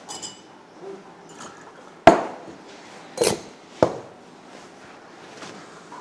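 Plates and metal cups clattering as a table is cleared: a short ringing clink at the start, then three sharp knocks about two, three and nearly four seconds in.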